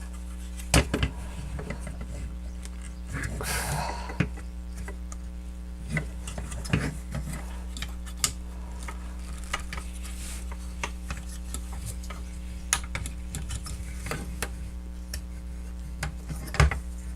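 Scattered plastic clicks and taps of a transformable robot toy's parts being handled, rotated and pressed into place, over a steady low electrical hum.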